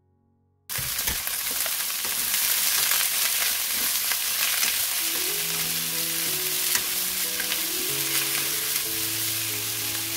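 Konjac, scallops, bamboo shoots and green pepper sizzling loudly as they are stir-fried in a nonstick wok, with the stirring audible through the sizzle. The sizzle starts abruptly about a second in. Soft piano music comes in underneath about halfway through.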